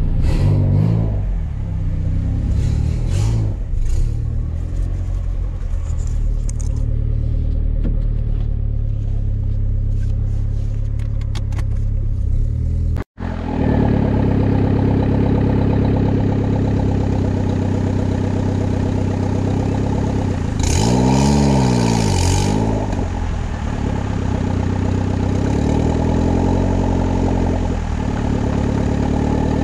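Turbocharged Honda Civic four-cylinder engine running steadily at low revs, with a short rev about three-quarters of the way through that comes with a brief high hiss.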